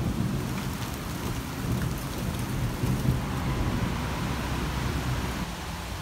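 Thunder rumbling in a thunderstorm, swelling about halfway through, over the steady hiss of heavy rain.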